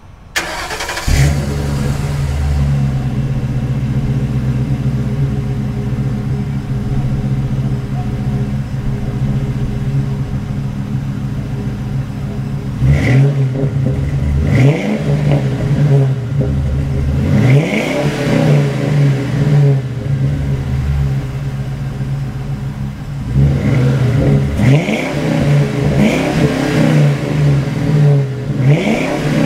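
Ford Crown Victoria P71's 4.6-litre V8 exhaust, heard from behind the car through new Flowmaster mufflers, with a throaty note. It idles steadily, then from about halfway is revved in a series of short blips, settles back to idle briefly, and is blipped several more times near the end.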